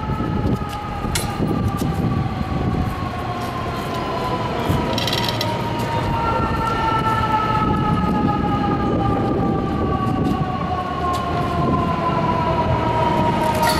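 San Francisco cable car being turned and rolled on a hand-pushed turntable: a continuous metallic whine in two or three tones that drift slowly lower, over a low rumble. A sharp click comes about a second in.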